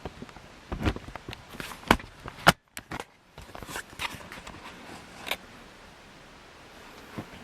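Irregular clicks and knocks, the loudest about two and a half seconds in, followed by a brief drop to near silence.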